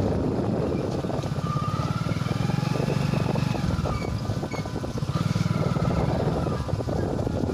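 Motorcycle engine running as the bike rides along; its note eases off around the middle, then picks up again.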